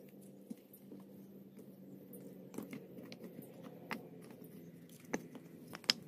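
Pieces of dry wood knocking and scraping against each other as they are stacked by hand into the opening of a mud kiln: a few sharp, irregular knocks, the loudest near the end, over a faint steady hum.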